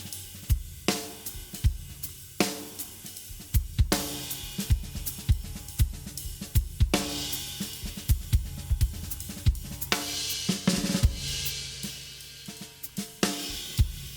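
Acoustic drum kit being played: a busy groove of bass drum, snare and hi-hat, with cymbal crashes ringing out every few seconds.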